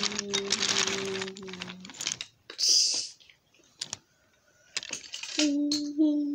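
Toy train clattering along the track, a rapid run of clicks over a steady motor hum, stopping about two seconds in. A short hiss and a few clicks follow, then near the end a child hums a few steady notes.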